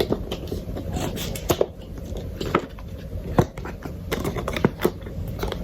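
Hands working the GoPro's retail packaging, pulling the seal and handling plastic and cardboard: irregular sharp clicks and crackles, about a dozen, over a faint low hum.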